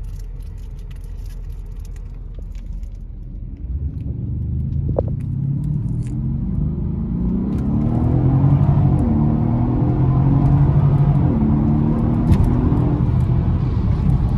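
Hemi V8 car engine accelerating hard. It runs low at first, then about four seconds in it opens up, revs climbing and dropping back as it shifts up a couple of times, getting louder.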